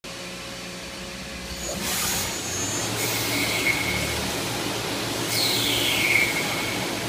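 Mori Seiki NLX2500-SY CNC lathe spindle spinning up about two seconds in, then turning a leaded steel bar with coolant spraying, a steady machine whine over the cutting noise. Around five seconds in a whine drops in pitch.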